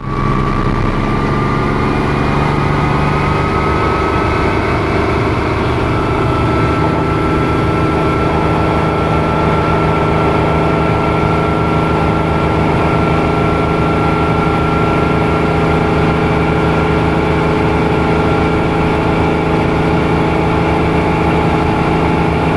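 Bell OH-13 Sioux helicopter's piston engine and rotor running, heard from inside the cockpit: a steady rapid engine beat with a whine that rises slowly in pitch over the first several seconds, then holds.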